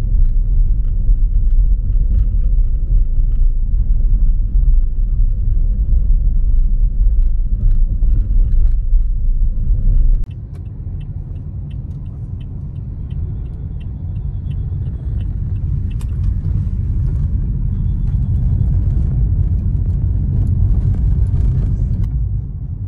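Taxi car on the move, heard from inside the cabin: a steady low rumble of road and engine noise. The rumble drops sharply about ten seconds in, then slowly builds again.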